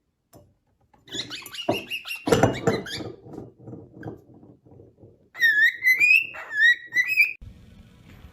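A small pet parrot chattering with scratchy clicking sounds, then a quick run of short whistled chirps that glide upward, about halfway through.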